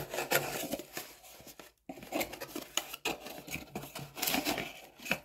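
Small cardboard product box being opened by hand: a run of short scraping, rustling and clicking noises as the flap is worked open and the contents are moved, with a couple of brief pauses.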